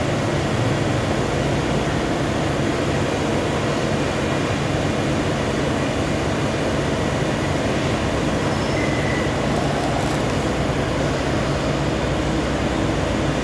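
CNC lathe running with a steady machine noise and low hum, typical of the spindle turning and cutting a part.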